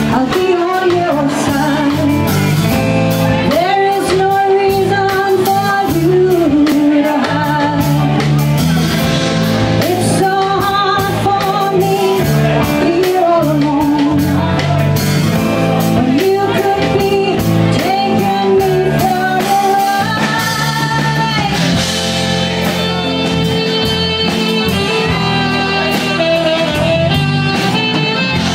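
Live band: a woman singing into a microphone over guitar backing, with a saxophone taking the lead near the end.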